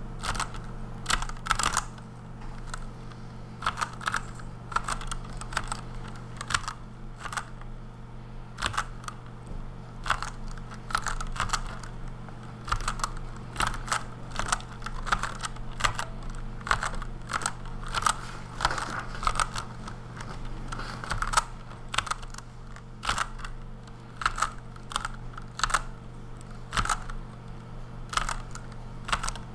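Redragon Kumara K552 mechanical keyboard with lubed Outemu Red linear switches, typed on in chorded steno strokes (Plover): small clusters of key clacks, several keys struck together for each word, about once a second. A steady low hum runs underneath.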